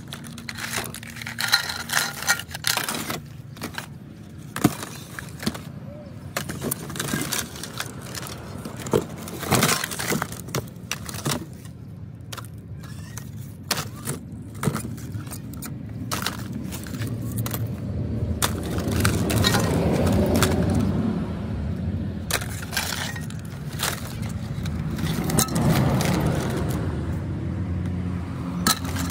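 Discarded mobile phones, screens and plastic housings clattering and clinking against each other in a cardboard box as a hand rummages through them and lifts pieces out, many sharp clicks and knocks throughout.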